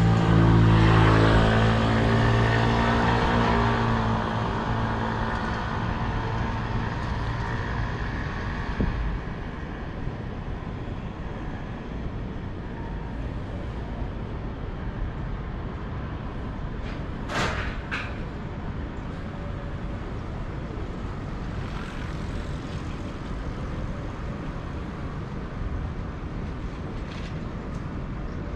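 A motor vehicle passing close on a city street, its engine loud at first and fading away about nine seconds in. Steady street traffic noise follows, with a couple of sharp clicks a little past halfway.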